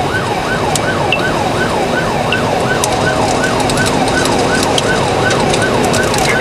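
Police car siren in yelp mode, a rapid repeating sweep about twice a second, heard from inside the squad car over its road noise.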